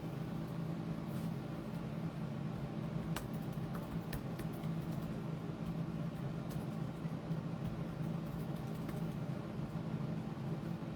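Steady low background hum of a room, with a few faint clicks about three and four seconds in.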